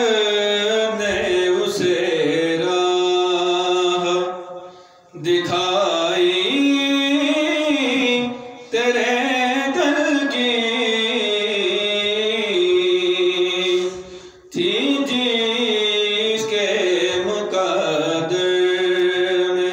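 A man chanting a naat, a devotional poem in praise of the Prophet, solo and unaccompanied, in long melodic phrases with drawn-out, wavering notes. The chant breaks off three times for short pauses.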